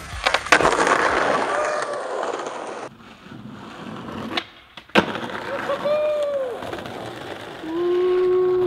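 Skateboard wheels rolling over a rough brick bank, with sharp board clacks, a loud clack about five seconds in as the board comes down, then a drawn-out shout near the end.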